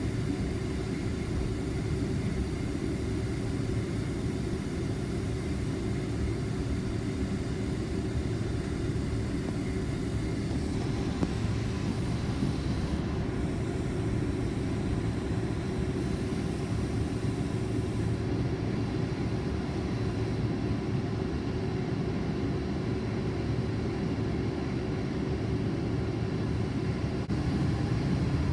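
Cabin noise inside a Boeing 767-400ER on the ground: a steady low rumble of the jet engines with a constant hum. The higher hiss drops away partway through.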